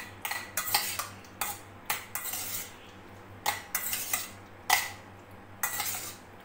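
Pieces of raw liver being tossed and turned by hand in a stainless steel bowl to coat them in vinegar. The pieces knock and scrape against the metal in irregular strokes, a few with a brief ring from the bowl.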